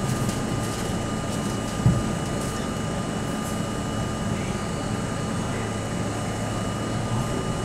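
New York City subway C train running and pulling into a station: a steady rumble of wheels on rail and traction gear, with a constant thin high whine over it and a single sharp knock about two seconds in.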